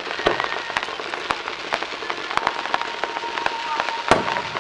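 Aerial fireworks bursting during a finale: a dense crackling of many small pops from crackle and glitter shells, with one louder bang about four seconds in.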